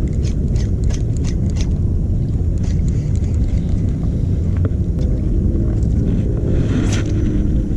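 Wind buffeting an action camera's microphone: a loud, steady low rumble. A few light clicks come in the first two seconds, and a brief swish about seven seconds in.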